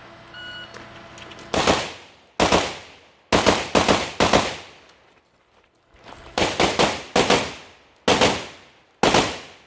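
A shot timer beeps briefly, then a rifle fires about a dozen shots in quick strings of two to four, with short pauses between the strings. Each shot fades with a short echo.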